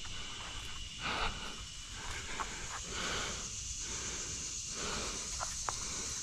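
A man breathing audibly near the microphone, soft breaths in and out roughly every second or so.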